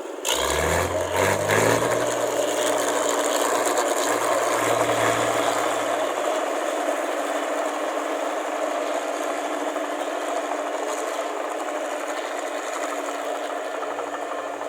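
Combine harvester's diesel engine revving up, rising in pitch just after the start, then running steadily.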